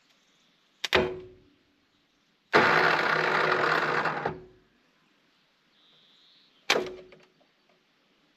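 Valmet 500 tractor's starter motor turning the engine over for under two seconds without it firing, with a short clunk of the starter engaging before it and another near the end.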